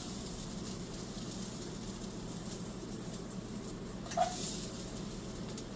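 Asparagus frying in olive oil in a cast iron skillet: a steady, quiet sizzle, with one short sharp sound about four seconds in.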